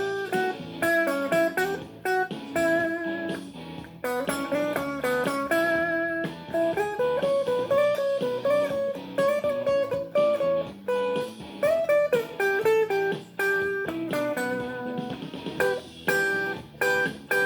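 Guitar playing a blues line of single plucked notes, with some notes bent upward in pitch.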